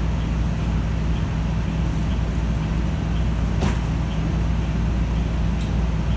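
Cummins L9N natural-gas engine of a New Flyer Xcelsior XN40 bus running steadily with a low hum, heard inside the passenger cabin. A sharp click sounds a little past halfway through.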